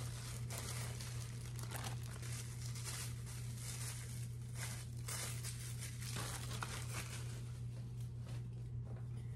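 Plastic packaging crinkling and tearing as a garment is unwrapped, with many short, irregular rustles, over a steady low hum.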